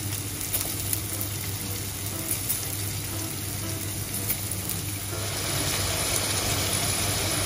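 Potato slices shallow-frying in oil, a steady sizzle with scattered small crackles, getting louder about five seconds in.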